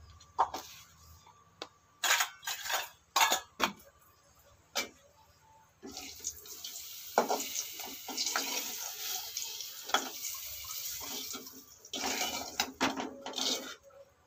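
Steel spoon and steel bowls and pots clinking and knocking together in a run of sharp separate strikes, followed by a few seconds of splashing, pouring water.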